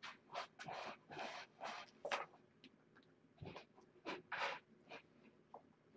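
Faint scratching and scuffling from cats' claws, a dozen or so short scrapes spread irregularly over a few seconds.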